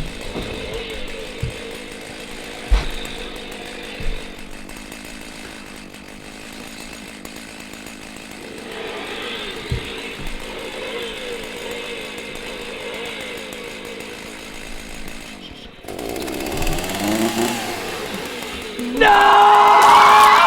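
A chainsaw running with a steady buzz, with a couple of knocks a few seconds in. It grows from about sixteen seconds in and is suddenly much louder and revving near the end.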